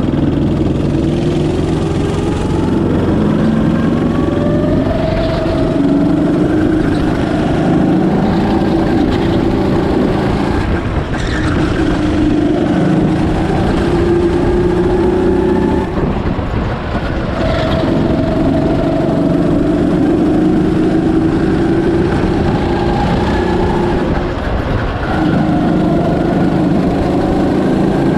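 Birel N35 go-kart engine heard from on board, its pitch climbing steadily under acceleration and then dropping sharply as the throttle is lifted for corners, about three times.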